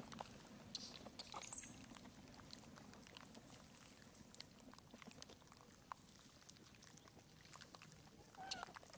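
Very quiet, with scattered faint clicks, then near the end a couple of short squeaky calls that rise and fall in pitch, from a long-tailed macaque.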